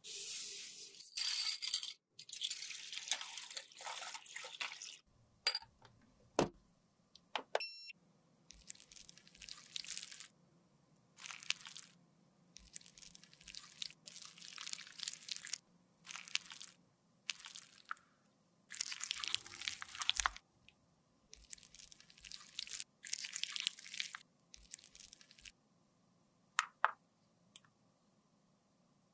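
Metal spatula scraping and scooping soft cream in a small jar, in repeated strokes of one to two seconds with short pauses between them, and a few sharp clicks near the end.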